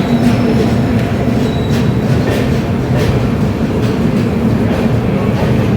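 Passenger train rolling slowly into the station, its coaches' wheels rumbling steadily on the rails, with occasional clicks over rail joints.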